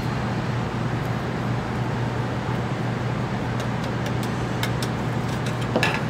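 Steady rush of lab ventilation with a low hum. Near the end come a few light plastic taps and clicks as powder is tapped out of a plastic weigh boat into a blender cup and the boat is set down.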